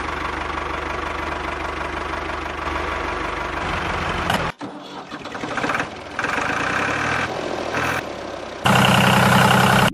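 A small motor running steadily for several seconds, then stopping and starting again in several short runs, loudest in the last run.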